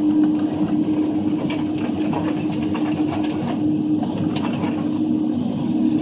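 Forestry machine's engine and hydraulics running with a steady hum while a Waratah 622B processing head works the wood, with scattered sharp knocks and cracks throughout.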